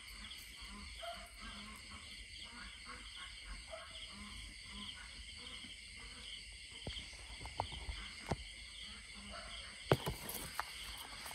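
Crickets or other night insects trilling in a steady chorus. In the second half come several sharp crackles and snaps of dry grass and stems, the loudest near the end.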